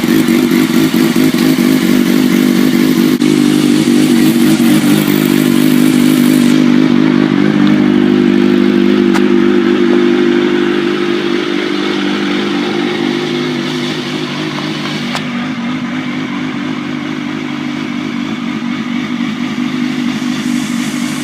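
Rebuilt Kawasaki ZX sportbike's inline-four engine running at a steady idle, just started after sitting unused for eight months. It settles a little quieter about halfway through.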